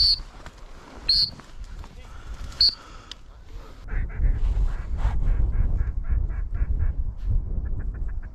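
Goose honking: three sharp, high honks in the first few seconds, then a run of quick clucking calls that speeds up near the end, over wind rumbling on the microphone.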